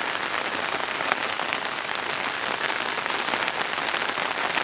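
Steady rain falling, an even hiss with many separate drop hits heard through it.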